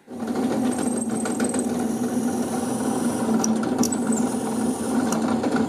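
Drill press motor running steadily with a strong even hum while the bit drills into clear acrylic.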